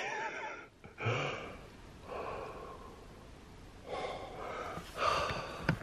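A man's heavy, breathy gasps and exhalations, several in a row and fairly faint: the breathing of someone exhausted after a 40-mile hike.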